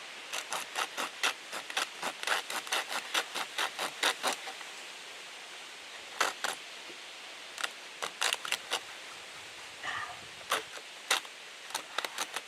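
Folding hand saw cutting through the tip of a caulk tube, in quick short rasping strokes. About four strokes a second for the first four seconds, then the sawing stops and starts in short runs.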